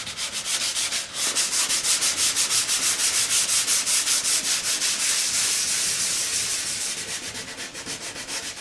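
Hand sanding of a primed aluminum aircraft wing skin with 320-grit open-coat sandpaper pressed under a gloved palm: quick back-and-forth rubbing strokes, about five or six a second, easing off lighter near the end. The smooth primer is sanding easily, without the paper clogging.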